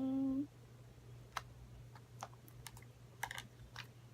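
Scattered small sharp clicks, irregular and well spaced, from fluffy slime being poked and squished with popsicle sticks.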